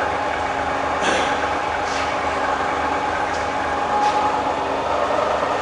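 Bridgeport variable-speed milling head running with the spindle turning and the quill power feed engaged: a steady mechanical hum, with a few light clicks.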